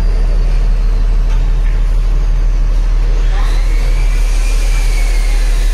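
Diesel truck engine idling: a loud, steady low rumble.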